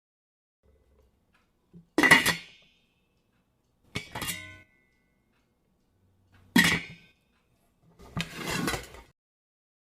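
Kitchenware being struck or set down four times, a couple of seconds apart, each a sharp metallic clank that rings on briefly.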